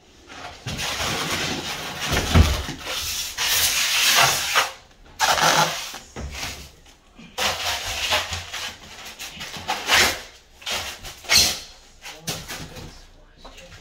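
Cardboard box and styrofoam packing scraping and rustling in loud, irregular bursts as an electric bike is lifted out of its shipping box, with a low knock about two seconds in and a few sharper clatters later.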